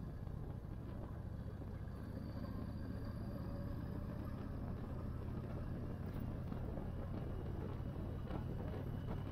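Yamaha Raider cruiser's V-twin engine running steadily at road speed, heard from the rider's seat, with road and wind noise. It gets slightly louder near the end.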